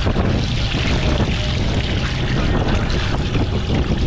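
Fishing boat's engine running steadily under way, with water splashing as cut fish pieces are rinsed in a plastic basket.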